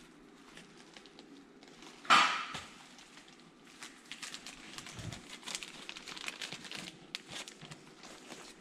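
Plastic packaging crinkling as it is handled: a small plastic parts bag and bubble wrap rustling, with one louder rustle about two seconds in and a run of small crackles later on.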